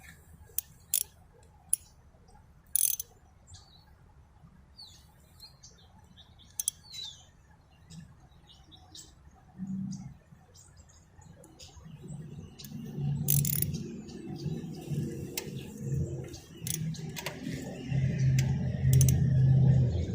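Scattered sharp metallic clicks and taps of a socket wrench being fitted and worked on a motorcycle crankcase cover bolt, with a few faint bird chirps. About twelve seconds in, a louder uneven low rumble comes in and continues.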